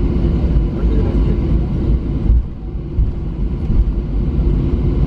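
Cabin noise of a Boeing 737-900 taxiing, heard beside the wing: a steady low rumble of the CFM56-7B engines and the rolling airframe, easing briefly about two and a half seconds in.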